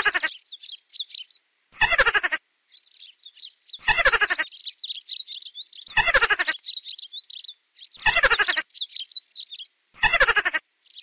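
Continuous high chirping birdsong, cut through about every two seconds by a short, loud, rattling squeaky call that falls in pitch. The call repeats six times at an even pace, like a looped sound effect.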